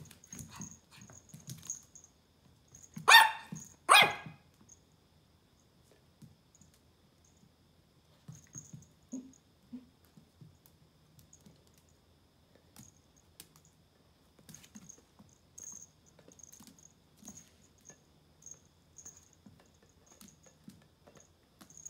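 Pomeranian puppy barking twice, less than a second apart, a few seconds in. Then light ticks and taps of its claws on the vinyl floor as it plays with a rubber ball.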